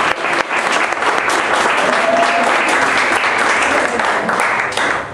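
A small audience applauding: dense, steady clapping that stops abruptly near the end.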